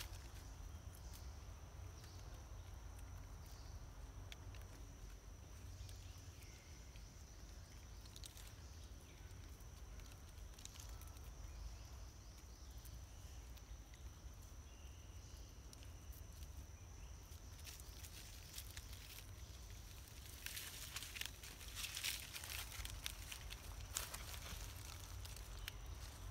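Faint outdoor ambience of macaques moving about on dry leaf litter and rock: scattered rustles and scrabbling that grow busier about three quarters of the way through, over a steady faint high whine.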